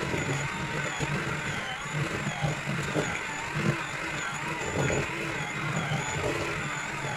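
Electric hand mixer running steadily, its beaters churning through stiff butter and sugar in a stainless steel bowl while creaming them, the motor's whine wavering slightly as the load changes.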